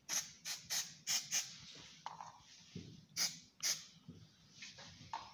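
Hand work on a car's front brake caliper parts: a run of short, sharp hissy strokes, several in quick succession near the start and two more a little after the middle.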